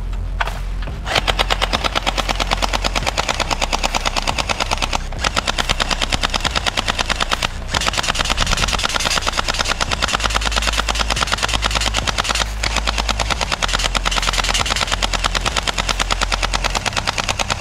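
Toy submachine-gun blaster firing on full auto: long strings of rapid, evenly spaced shots with short breaks about five, seven and a half and twelve and a half seconds in.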